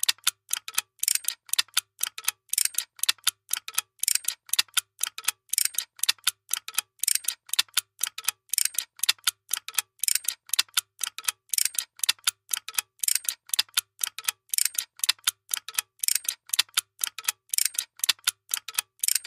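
Workshop machine running with a fast, steady mechanical clicking. The clicks fall in a pattern that repeats about every second and a half, with a faint low hum coming and going in step.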